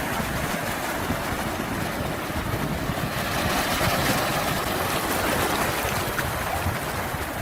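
Sea waves washing in, a continuous rushing surf that swells slightly midway and eases again.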